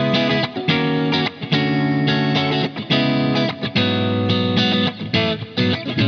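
GrassRoots G-Snapper 24/M AS electric guitar, with an ash body and roasted maple neck, played on a clean amp sound. Chords are strummed one after another, each ringing briefly before the next, with short gaps between phrases.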